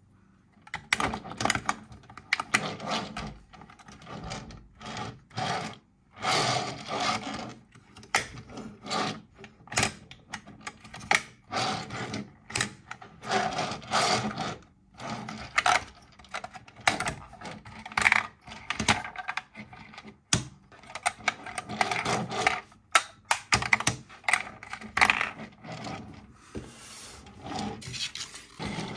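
Hard plastic toy parts being handled: a Paw Patrol Jungle Pups Rubble rhino vehicle and its figure clicking, snapping and rattling as the vehicle is transformed into rhino mode. The sound comes in irregular bursts with many sharp clicks.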